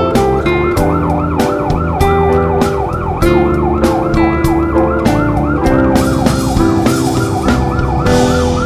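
A fast siren wail rising and falling about four times a second, over music with a steady beat, chords and a bass line.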